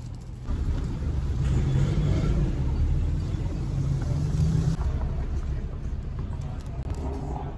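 A motor vehicle passing close by on the street: a low engine rumble that swells suddenly about half a second in, holds through the middle, then slowly fades.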